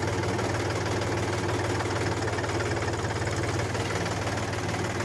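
Mini tractor engine running steadily with a fast, even chugging.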